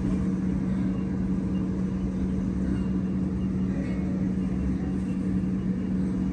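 A motor running steadily: a low hum that holds one pitch over a rumble.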